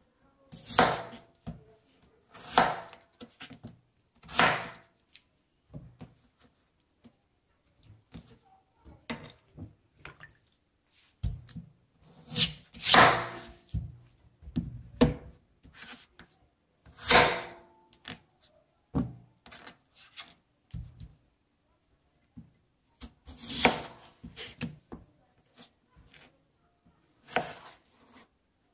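Kitchen knife cutting through peeled yam and knocking on a wooden cutting board: irregular sharp chops, sometimes a couple of seconds apart and sometimes several, with fainter taps between.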